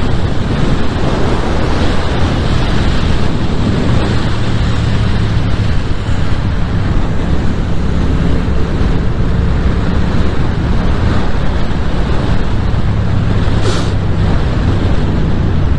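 Yamaha MT-07's parallel-twin engine running at a steady cruise, mixed with heavy wind noise on the microphone. A short hiss about 14 seconds in.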